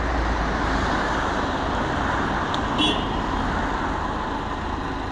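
Steady road noise of a moving car: a low rumble with hiss, and a short high beep about three seconds in.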